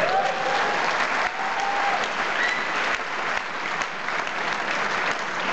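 Large audience clapping steadily, with a few long whoops and cheers over the clapping in the first few seconds.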